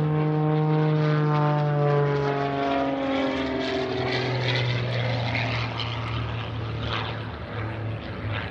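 MXS aerobatic monoplane's piston engine and propeller in flight. Its note falls steadily in pitch over the first few seconds, then grows a little fainter as the plane pulls up and climbs away.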